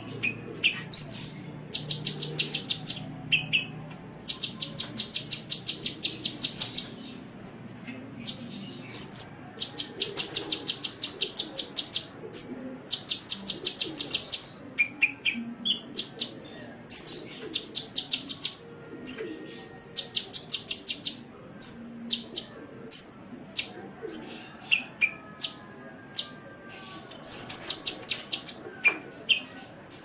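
Sunbird song: fast rattling trills of ticking notes, each run lasting one to three seconds, broken by short high chirps.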